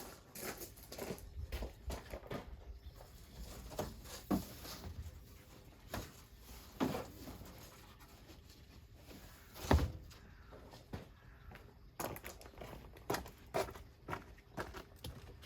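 Irregular light knocks and taps, with a louder thump about ten seconds in and quicker taps near the end.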